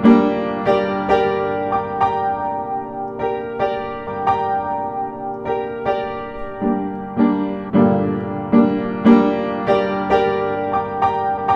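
Piano music: a steady run of struck notes, a little over two a second, with a brief pause about two thirds of the way through.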